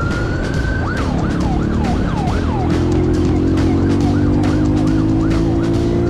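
Police car siren, a rising wail that switches to a fast yelp, its pitch sweeping down about two to three times a second. Under it a dirt bike engine runs steadily and picks up a little about three seconds in.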